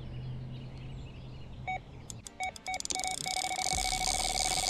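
Electronic carp bite alarm, a Fox RX, signalling a run: a few short beeps about two seconds in that quickly come faster, then an unbroken tone as line is pulled steadily off the reel by a fish that has taken the bait.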